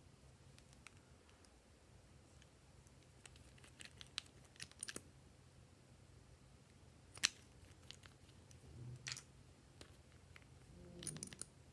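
Faint, scattered plastic clicks and taps from cosmetic pens being uncapped and handled, with one sharp click about seven seconds in as the loudest.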